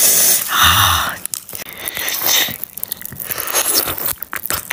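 Close-up eating sounds: a soft jelly pudding topped with popping candy being bitten and sucked, with many small sharp crackling clicks.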